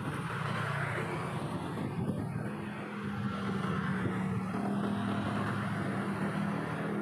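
Street traffic, mainly small motorbikes running past, over a steady noisy background; a steady engine hum sets in about three seconds in.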